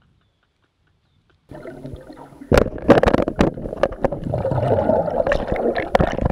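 Underwater sound through a GoPro's housing: muffled churning water and bubbling, with several sharp knocks, starting about a second and a half in after near silence.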